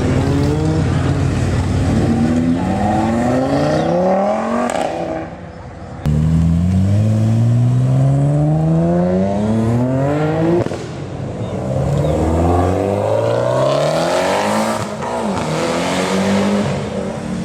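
High-performance car engines accelerating hard through the gears, each pull climbing in pitch then dropping back at a gear change, repeated several times. There is an abrupt change about six seconds in.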